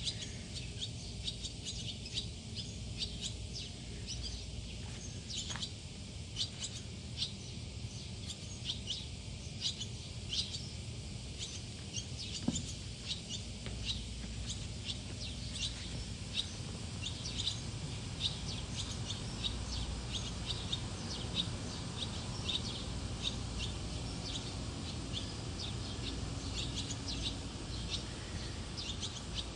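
Swallows calling: a steady run of short, high chirps, a few each second, over a low steady rumble.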